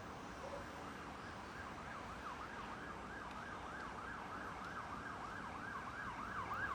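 An emergency vehicle siren in yelp mode, rising and falling fast, about three sweeps a second. It starts about a second and a half in, heard over the steady hum of city traffic.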